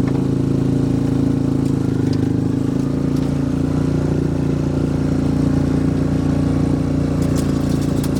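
Yamaha Rhino side-by-side's engine running steadily as it drives, its note shifting a little about two to three seconds in, with a few light clicks or rattles near the end.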